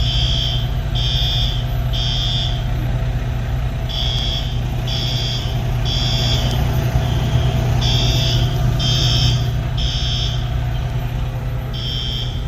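Hotel fire alarm sounding the temporal-three evacuation signal: groups of three high-pitched beeps about a second apart, a pause, then the next group, repeating every four seconds. Underneath runs a steady low engine rumble.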